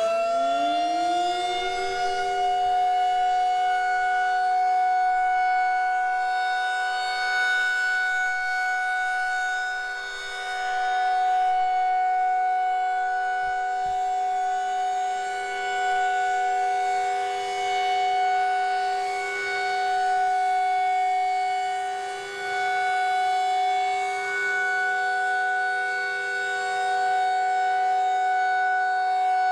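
Federal Signal 2001-SRN outdoor warning siren sounding the Alert signal. It finishes winding up in the first second or two, then holds a steady tone that swells and fades about every twelve seconds as the rotating siren head sweeps around.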